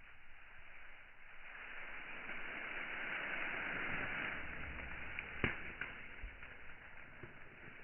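Concrete mixer truck at work: a rushing mechanical noise that swells about two seconds in, with a sharp knock about five and a half seconds in.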